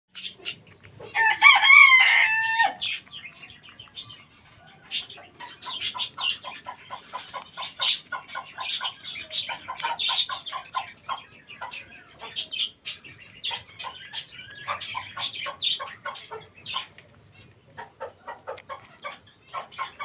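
A rooster crows once, briefly and loudly, about a second in. Chickens then cluck in rapid runs of short calls.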